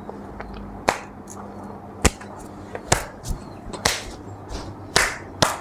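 A series of six sharp smacks, roughly one a second, over a faint steady hum.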